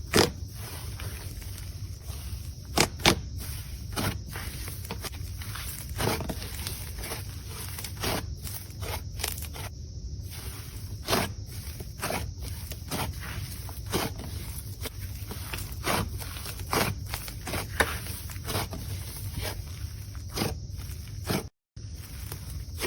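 Slime being squeezed and kneaded by hand, giving irregular sharp pops and clicks about once or twice a second over a steady low hum, with a brief cut-out near the end.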